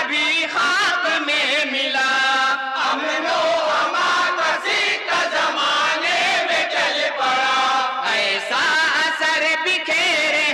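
A group of men chanting an Urdu naat in unison into microphones, with long held and wavering sung notes.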